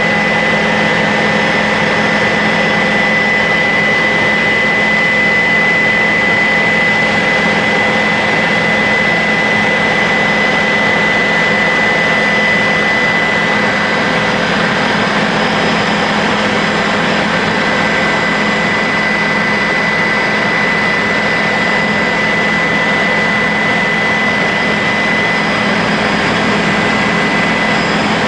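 Helicopter heard from inside the cabin in flight: a loud, steady drone of engine and rotor, with a high whine held on one pitch.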